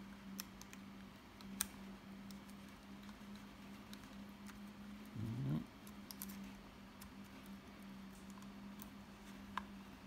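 Faint, sparse clicks and light scraping of a thin pick working a ribbon cable into the white connector lock on a BMW iDrive controller's circuit board, over a steady low hum.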